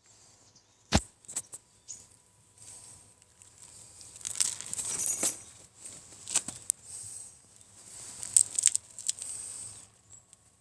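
Rustling and scratching with scattered sharp clicks, the loudest a single click about a second in, as Shiba Inu puppies move about in their bedding.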